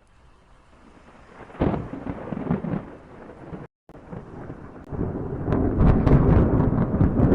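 Thunder: a sudden crack about a second and a half in that rumbles away, then, after a brief cut-out, a louder rolling rumble building with crackles toward the end.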